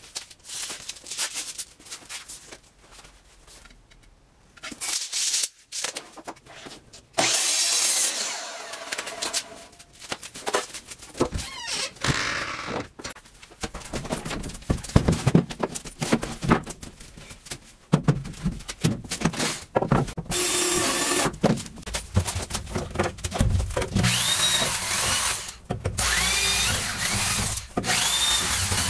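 Cordless drill working on the wooden 2x4 window-frame supports, run in several short trigger pulls near the end, each a rising-then-falling whine. Knocks and clatter come before it.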